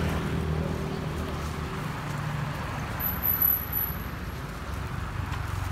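A steady low engine hum, with a brief high-pitched whistling tone about three seconds in.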